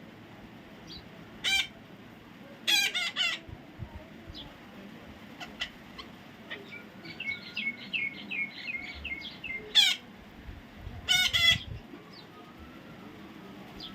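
Parrot giving short, harsh screeching calls, singly and in quick runs of two or three. In the middle comes a softer run of rapid chirps, about three a second.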